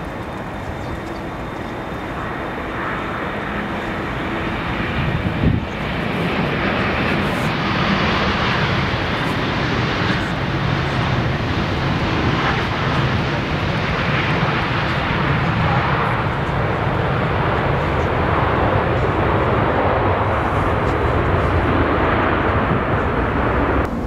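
Jet noise from a Boeing 787 Dreamliner's Rolls-Royce Trent 1000 turbofans as the airliner lands, loud and steady with a deep rumble. It builds over the first few seconds, breaks off briefly, then holds as the aircraft passes close by at touchdown.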